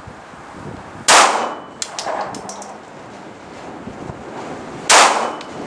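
Two shots from a Kahr P380 .380 ACP pistol, about four seconds apart. Each is followed by small metallic clinks of the ejected brass landing.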